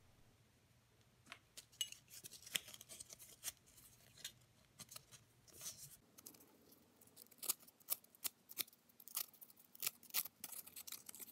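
Emery cloth rubbing against a sewing machine's metal rotary hook to buff a burr off the hook tip, with small handling clicks of the metal parts. Faint, irregular scratches and clicks, growing denser about halfway through.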